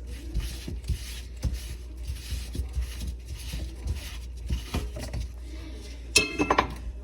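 Scattered light knocks of hard objects being handled over a steady low hum, then a quick run of ringing clinks, several in under a second, about six seconds in.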